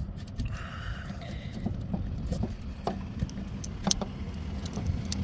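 Scattered small clicks and knocks of an old ignition coil being handled and slid out of its clamp, over a steady low rumble.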